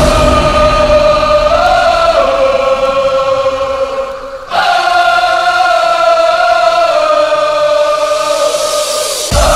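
Breakdown of a hard-dance (hardtekk/hardstyle) track: long held choir-like chords with no kick drum, changing chord twice, with a brief drop in level and swell back about four seconds in. The pounding kick drum comes back in near the end.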